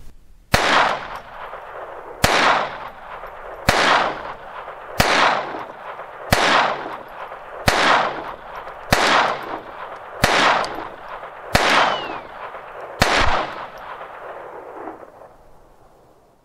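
Ten .22 LR shots from a Ruger 10/22 semi-automatic rifle firing Remington Thunderbolt rounds, evenly paced about one every second and a half. Each shot is a sharp crack followed by a short echoing tail.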